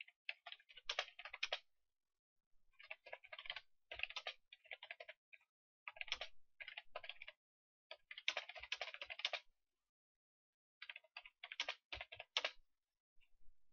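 Typing on a computer keyboard: quick runs of key clicks, each lasting a second or so, with short pauses between them.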